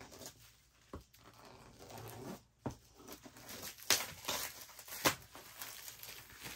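A knife cutting open a cardboard shipping box: scratchy slicing and tearing through the packing tape, broken by several sharp taps and clicks.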